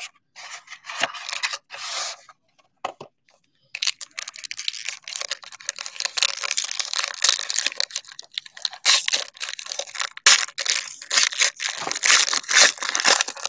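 Panini Origins football card box and pack wrappers being torn open. Short bursts of plastic wrapper ripping and crinkling come first, then a dense stretch of crackling and rustling from about four seconds in.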